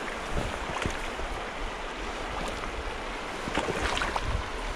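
Steady rush of fast-flowing creek water, with low wind buffeting on the microphone and a few short sharp sounds near the start and again near the end.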